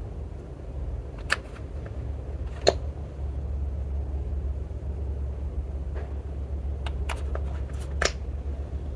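Slime being worked by hand, giving scattered sharp clicks and air-bubble pops, a few at first and a quick cluster near the end, over a steady low hum.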